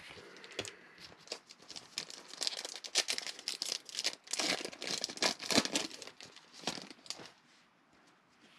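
A 2020 Panini Mosaic football card pack being torn open by hand, its foil wrapper crinkling and tearing in quick, irregular crackles for about seven seconds.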